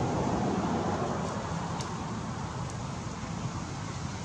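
Steady outdoor background noise with a low rumble, slightly louder in the first second or so, with a few faint ticks.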